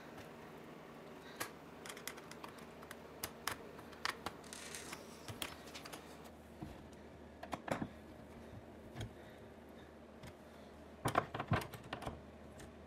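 Irregular light clicks and taps of a small screwdriver and spanner working the screws and nuts of a steel hinge on a clear acrylic sheet, with a quick run of louder clicks near the end.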